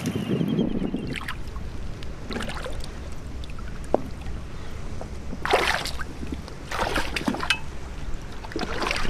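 Shallow seawater splashing and sloshing in short bursts every second or two as hands stir a rock pool, with one sharp click about four seconds in, over a low steady rumble.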